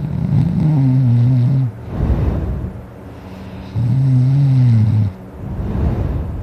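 A person snoring loudly in their sleep: two long, low snores about three and a half seconds apart, each followed by a breathy rush of air.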